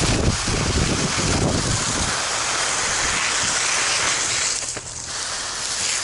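Fire hose nozzle spraying a jet of water onto a fire, a steady loud hiss of rushing water with some low rumbling in the first two seconds. The hiss dips briefly about five seconds in.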